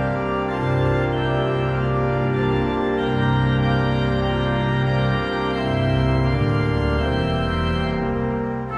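Church organ playing slow, held chords, the harmony shifting every second or two.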